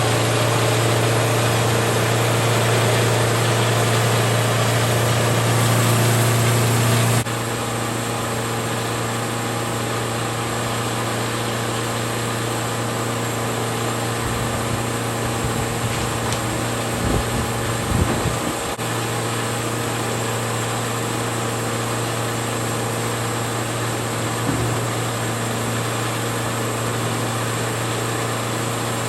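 An engine running steadily with a strong low hum. The level drops suddenly about seven seconds in, and a few low thumps come in the middle.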